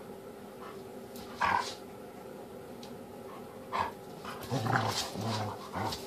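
A Jack Russell–Shih Tzu mix puppy and a Golden Retriever–Husky mix play-fighting: short growls and yips at about a second and a half and near four seconds, then a quicker run of growling in the last second and a half.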